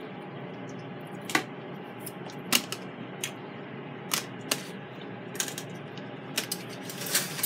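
Knife and fork clicking and tapping against a foil-lined plate while meat is cut: a handful of sharp, irregular clicks over a steady low room hum.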